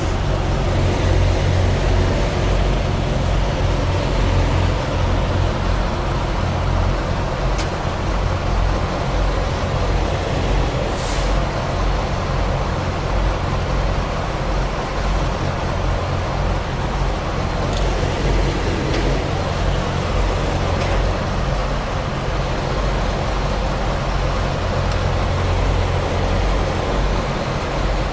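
Semi-truck diesel engine running as the truck creeps along at low speed, heard from inside the cab: a steady low rumble. A few brief faint high ticks sound over it.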